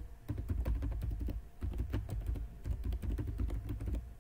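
Typing on a computer keyboard: a quick run of keystrokes, with a brief pause about a second and a half in.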